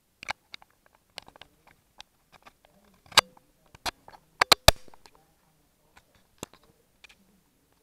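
Kitchen items being handled: scattered clicks and knocks, with the loudest clatters about three seconds in and a quick run of three about four and a half seconds in, followed by a short ringing tone.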